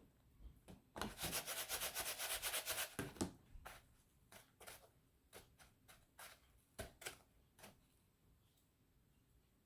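Raw chicken cutlets being pressed and turned in dry breadcrumbs, a faint gritty rubbing. There is a dense run of quick scratchy strokes for about two seconds, then a string of separate short pats and scrapes.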